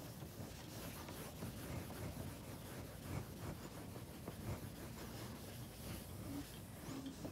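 Blackboard eraser rubbing across a chalkboard in repeated wiping strokes, faint.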